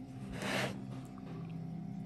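Steady ambient music drone with a single short scrape about half a second in.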